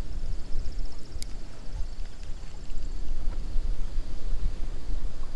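Wind buffeting the camera microphone: an uneven low rumble. Over the first few seconds there is also a faint, high, rapid ticking whir, and a single click comes about a second in.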